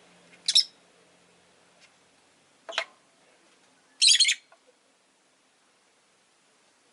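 Rosy-faced lovebird giving three sharp, shrill chirps, the last one longer and loudest, about four seconds in.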